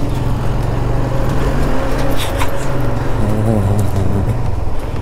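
Motorcycle engine running steadily, with a short rising engine note about three seconds in.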